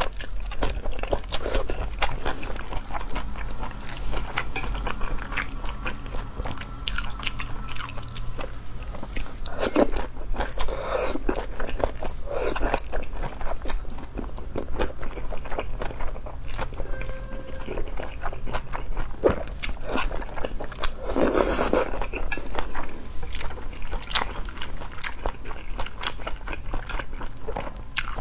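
Close-miked eating of cold wide mianpi noodles with shredded raw carrot: wet chewing with crisp crunches from the vegetables, and noodles slurped into the mouth. There are a few louder slurps, the strongest about twenty-one seconds in.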